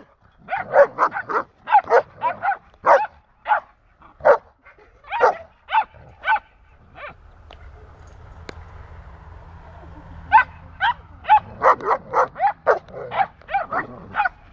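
A dog barking in quick runs of short, sharp barks, stopping for about four seconds midway before starting again.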